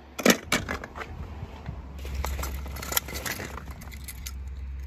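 Small die-cast toy cars clinking and clattering against each other in a plastic bowl as a hand rummages through them, with a sharp click about a third of a second in and scattered smaller clicks after, over a low steady rumble.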